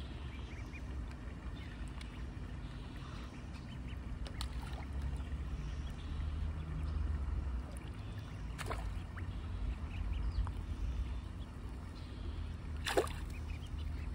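Pond water sloshing and lapping as koi and ducklings crowd the stone edge, over a steady low rumble. Two sharp sounds cut through, one about nine seconds in and a louder one near the end.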